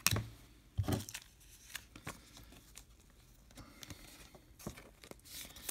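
Trading cards being handled and thin clear plastic crinkling, with two sharp card snaps in the first second and scattered faint rustles and ticks after.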